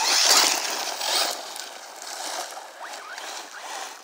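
Arrma Typhon 6S RC buggy, running on a 4S battery, tearing through wet grass: a loud rushing hiss of tyres and grass at the start and again about a second in, then fainter, with a few short rising whines from the motor.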